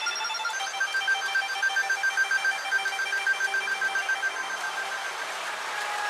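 Electronic ringing like a telephone bell: a bright tone pulsing rapidly, about five times a second, that fades out near the end.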